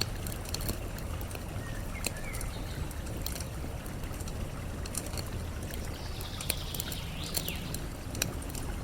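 Campfire crackling with scattered sharp pops over a steady rush of flowing water. A bird calls faintly about two seconds in, then more clearly with a quick sweeping call about seven seconds in.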